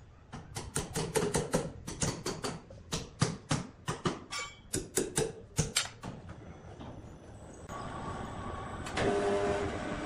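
Rapid series of sharp metallic knocks, about four a second for some six seconds, as the log is being wedged and secured on the band sawmill's log bed. Near the end, sawmill machinery starts running with a steady hum that grows louder.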